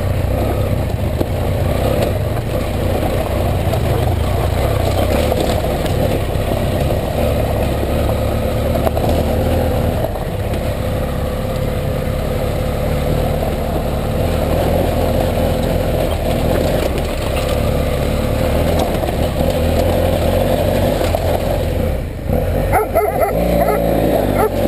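BMW F 800 GS parallel-twin engine running steadily under way on a gravel track, with road and wind noise. Near the end the sound dips and the engine note changes briefly.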